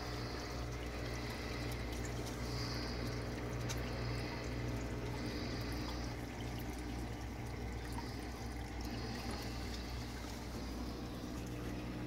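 Water pouring and splashing into a reef aquarium sump, steady throughout, over a steady low hum.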